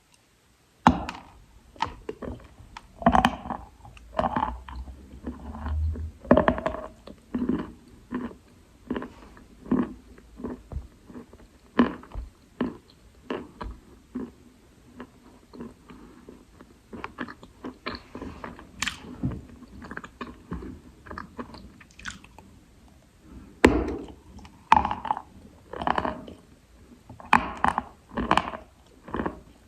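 A person biting and chewing lumps of wet Khrapovsky chalk. The crunching bites start about a second in and go on irregularly, some much louder than others.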